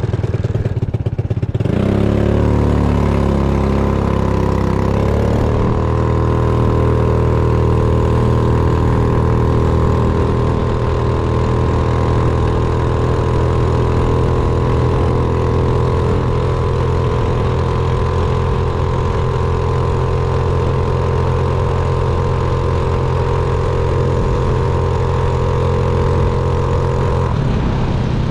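Yamaha Zuma 50F scooter's engine accelerating hard from a standstill, with wind noise. The engine note climbs over the first few seconds, then holds at one steady pitch while the CVT lets road speed rise to about 42 mph. Near the end the throttle is closed and the note drops. On this run the rider finds the takeoff much weaker since his gear swap.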